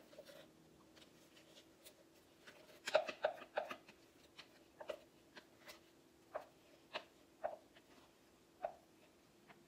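Paint dripping from an upturned plastic pouring cup onto a canvas: small sharp plops, a quick cluster about three seconds in, then single drops every half second or so, over a faint steady hum.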